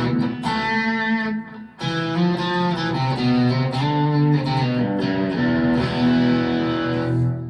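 Strat-style electric guitar played through an amp: chords and picked notes ringing out, with a brief break about two seconds in.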